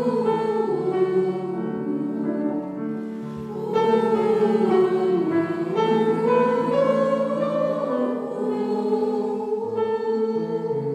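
Choir of mostly women's voices singing in unison-like harmony, holding long notes in a melody that slowly rises and falls over steady lower parts.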